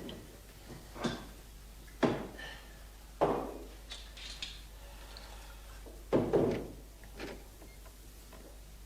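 A handful of separate thuds and knocks in a small room: single ones about one, two and three seconds in, a louder double one about six seconds in, and a lighter one soon after, over a low hum.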